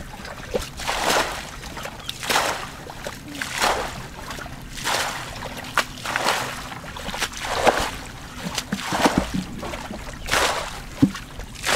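Muddy water being bailed with a plastic bucket: a swishing splash each time it is scooped up and thrown out. It repeats steadily, about every second and a quarter.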